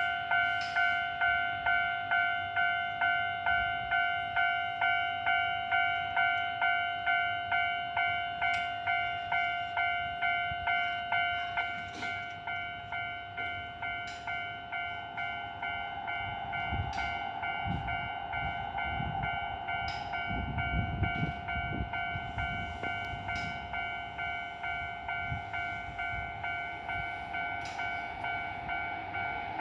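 Japanese level-crossing warning bell ringing in an even, rapid clang about twice a second. From about halfway through, an electric train passes over the crossing, its wheels rumbling and knocking over the rail joints, while the bell keeps ringing.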